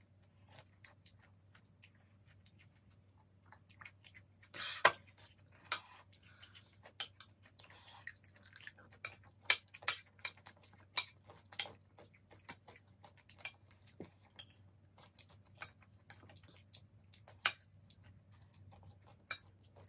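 Metal fork and spoon clicking and scraping against ceramic plates as two people eat, in irregular sharp clinks, a few of them louder.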